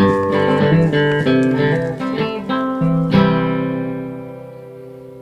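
Intro music: acoustic guitar picking that ends about three seconds in on a final strummed chord, left to ring and fade out.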